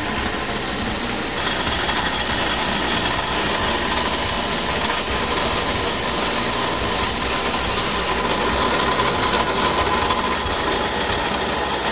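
Bench grinder fitted with a Scotch-Brite wheel running steadily, a continuous hiss with a faint whine, as the sharp edges of a piston are worked against the spinning wheel to deburr them.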